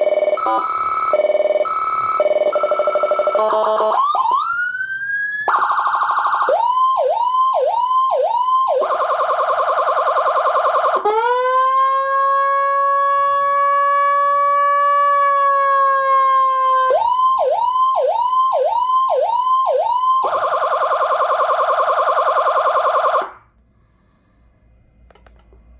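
150-watt electronic siren through its horn speaker, cycling through tones: a fast stepping warble, a single rising whoop, a rapid yelp at about two rises a second, a steady tone, and a long slow wail that rises and falls. It then returns to the yelp and a steady tone and cuts off suddenly near the end.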